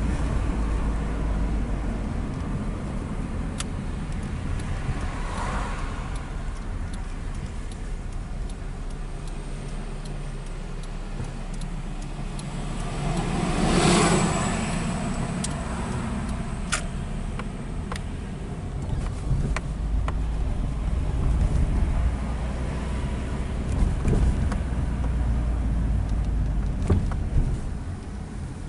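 Steady road and engine noise of a Nissan Primera driving, heard inside the cabin. A louder rushing swell rises and falls about halfway through, with a few faint clicks and rattles.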